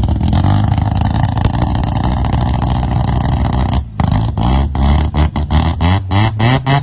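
Mazda 12A rotary engine running loud and steady at held revs. About four seconds in it drops off and is then blipped repeatedly in quick short revs, rising and falling.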